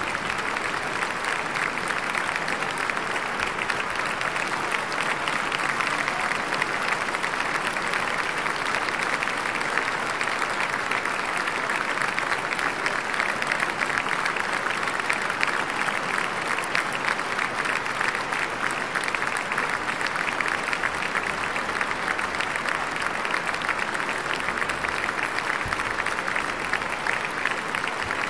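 A large concert audience applauding, with dense, steady clapping throughout.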